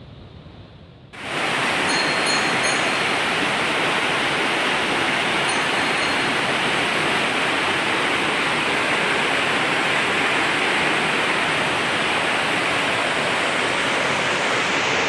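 Waterfall: a loud, steady rush of falling water that cuts in suddenly about a second in, after a quieter stretch.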